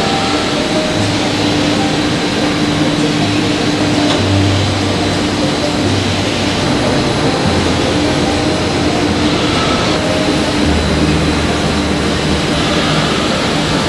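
Steady loud din of textile dyeing and finishing machinery, with a humming tone running throughout and a low hum that switches on and off several times.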